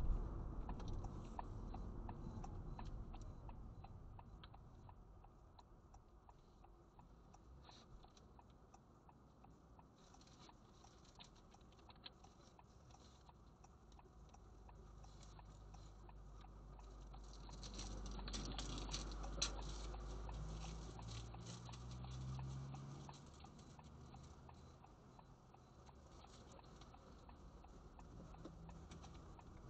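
Faint low rumble of a car driving on the road, swelling for a few seconds about two-thirds of the way through, with light, irregular ticking over it.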